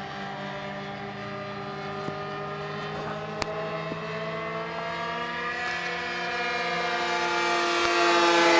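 RC model airplane engine buzzing in flight, its pitch gliding slowly and growing louder toward the end as the plane comes closer.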